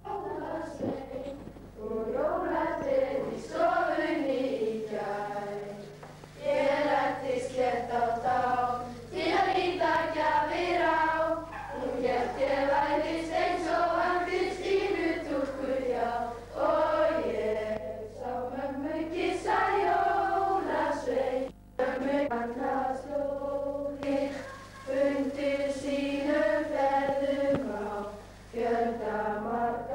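Schoolchildren singing a Christmas song together, in phrases of long held notes with short breaks between them. A steady low hum from the old film soundtrack runs underneath.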